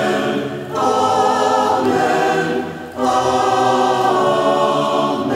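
Church choir singing slow, sustained chords, moving to a new chord about a second in and again about three seconds in: the sung response that follows the spoken benediction.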